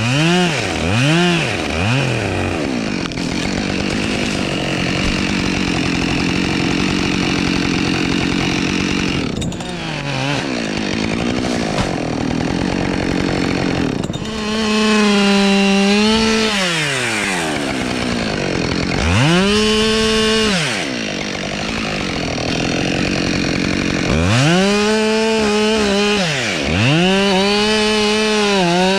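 Gas chainsaw revved over and over, its pitch rising to full throttle and dropping back, with a few quick blips at the start and near the end and longer full-throttle runs in the second half.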